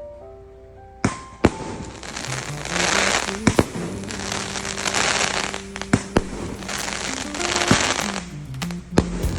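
Fireworks going off: sharp bangs, the first about a second in, with waves of crackling between them, over music playing along.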